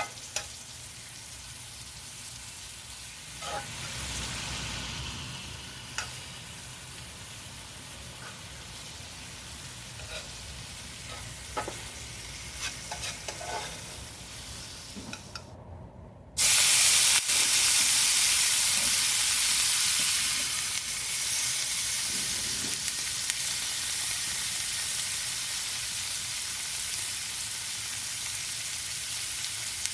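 Food frying in a pan: a steady sizzle with the clicks and scrapes of stirring for the first half. After a brief break a little past halfway, a much louder sizzle starts and slowly dies down.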